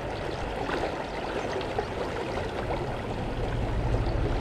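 River current running steadily over a shallow stony riffle, growing slightly louder toward the end.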